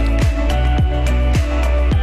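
Background music with a steady beat: deep bass and bass drum hits that drop in pitch, about two a second, with regular hi-hat strokes.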